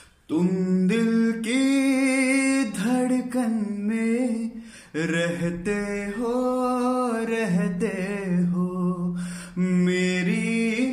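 A man singing unaccompanied, a slow melody in long, wavering held notes with short breaths between phrases.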